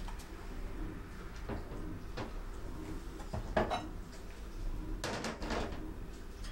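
Kitchen handling sounds: a few soft knocks, then a ceramic mug set down on a stainless-steel draining board with a sharp knock and short ring about three and a half seconds in, and a brief clatter near the end as a glass jar is picked up.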